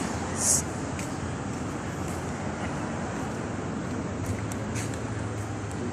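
Steady street traffic noise, with a short hiss about half a second in and a low vehicle hum near the end.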